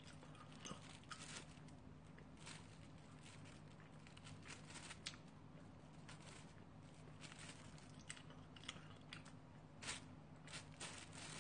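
Faint, scattered small clicks and eating sounds as disposable wooden chopsticks pick at food in a takeout bowl, over a low steady hum.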